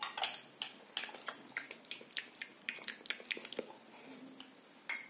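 Quick, irregular series of wet mouth clicks and lip smacks: a person making pretend munching sounds for a doll eating.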